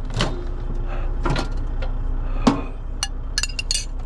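Knocks, clinks and clatter of dishes, containers and other belongings being handled and packed up. The clatter comes a few times, with a quick run of small high clicks near the end, over a steady low hum.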